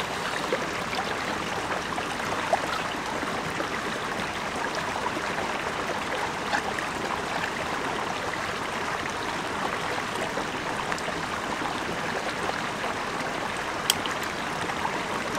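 Small shallow mountain stream running steadily over stones, with a few faint ticks and one sharp click near the end.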